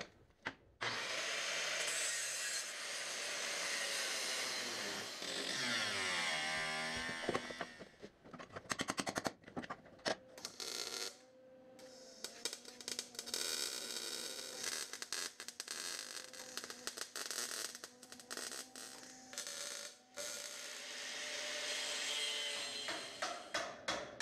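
A handheld power tool running against metal for several seconds, its motor then winding down in pitch. Several sharp metallic clanks follow, and then a longer stretch of steady tool noise.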